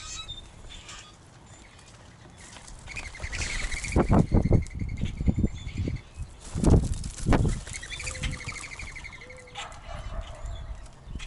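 Backyard birds, common grackles and mourning doves: a rapid rattling, squeaky call runs for a few seconds and returns near the end, with several low thumps of wing flaps in between.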